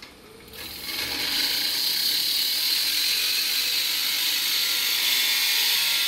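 A handheld turning tool cutting a spinning elm blank on a wood lathe, shavings peeling off in a steady hiss that starts about half a second in.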